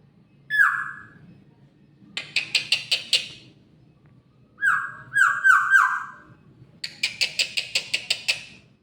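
Oriole (kepodang) calling: harsh, nasal calls that slide down in pitch, one about half a second in and four in quick succession near the middle, alternating with two fast rattling series of about eight to nine notes a second.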